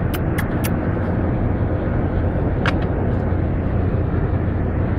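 Steady road and engine noise of a moving car, heard inside the cabin, with a few brief clicks near the start and another about two and a half seconds in.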